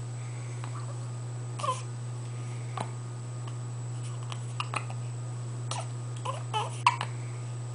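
Hiccups: a string of short, sharp hics at uneven intervals, some with a brief squeak that drops in pitch, closer together near the end.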